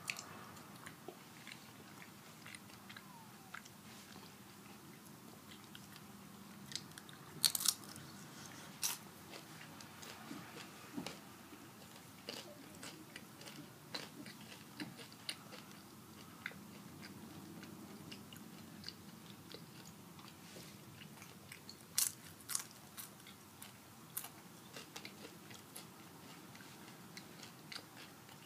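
Close-up biting, crunching and chewing of nacho chips: irregular sharp crunches, with a few louder bites about seven seconds and twenty-two seconds in.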